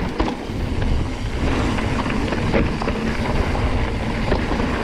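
Enduro mountain bike riding a dirt trail: a steady low rumble of tyres and ground noise with scattered sharp clicks and rattles from the bike, and wind on the microphone.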